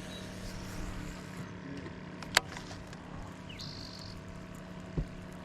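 Steady hum of a fishing boat's motor, with a sharp click about two and a half seconds in and a dull thump near the end.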